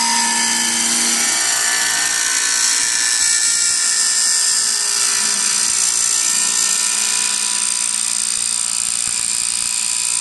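Wood copying lathe running steadily with a high whine while turning a wooden chair spindle.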